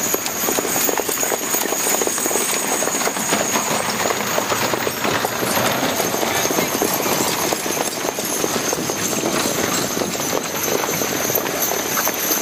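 Six-horse hitches of draft horses trotting close past on a dirt ring: a dense, continuous clatter of many hoofbeats.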